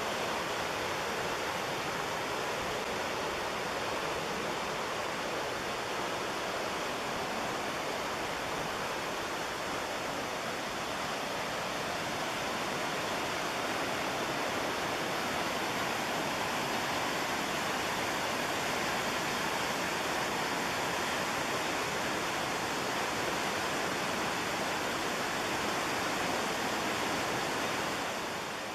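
Steady roar of the McKenzie River's rushing whitewater, an even rush of water noise that dips briefly at the very end.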